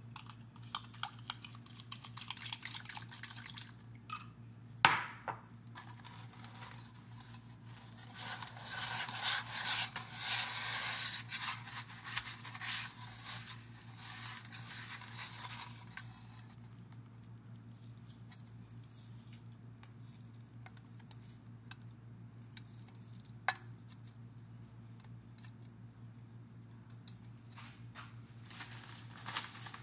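Kitchen handling sounds while a ham is dressed with pineapple rings: scattered light clicks and taps, one sharp knock about five seconds in, and a stretch of scraping and rustling from about eight to sixteen seconds, over a steady low hum.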